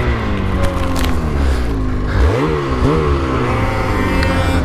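Mountain snowmobile engines revving up and down while riding through deep powder, the pitch rising and falling repeatedly, with a quick drop and climb about two seconds in.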